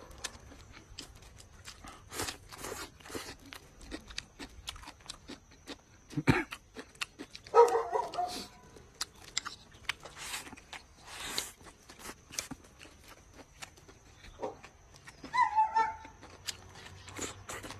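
Close-up eating sounds: chewing, smacking and slurping of noodles, with light chopstick clicks. A few short pitched yelps break in, the loudest about seven seconds in and another near the end.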